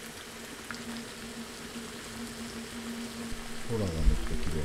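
Oil gently sizzling and bubbling in a pan on a camp stove, an even hiss with small pops over a steady low hum. A short musical phrase comes in near the end.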